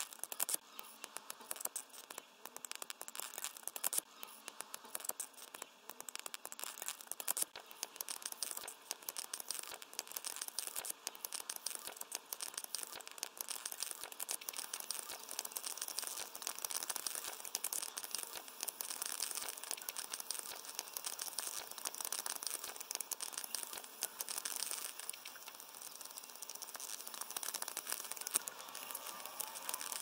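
Paper pages of hand-drawn flipbooks riffling off a thumb: a dense, rapid run of small paper ticks and flutters.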